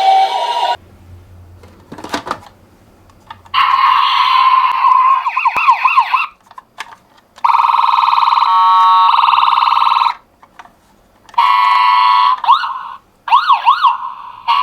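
Toy ambulance's electronic siren sounding in separate bursts of one to three seconds with short pauses between them. It switches between a rapid up-and-down wail and a steady held tone.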